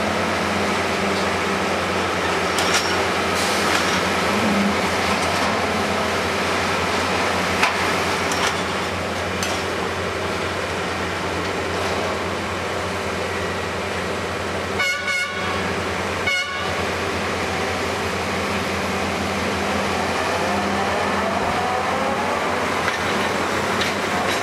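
Track-laying machine running steadily, its diesel engine droning under the working noise, with occasional sharp clanks of steel on steel as it handles rail and sleepers.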